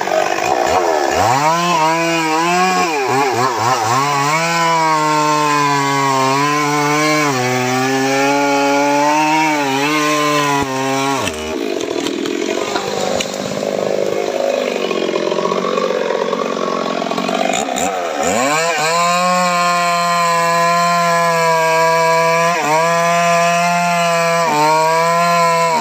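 Homemade long-bar chainsaw running at high revs and cutting through johar wood, its pitch sagging each time the chain bites into the cut. About eleven seconds in the engine tone drops away and a rougher noise without it fills several seconds, then the saw revs up again near eighteen seconds and goes back to cutting, bogging down briefly a few times.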